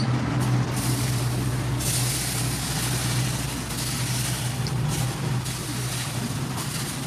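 Water dripped by hand onto a hot steel billhook blade, sizzling and hissing in uneven spurts as it flashes to steam. Under it runs a steady low machine hum.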